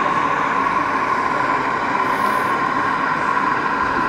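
O gauge model GWR diesel railcar running slowly along the track, a steady, unbroken hum.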